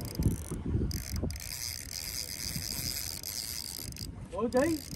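Spinning fishing reel being cranked by hand, its gears and rotor whirring, with some handling knocks in the first second or so. Near the end comes a short rising pitched sound.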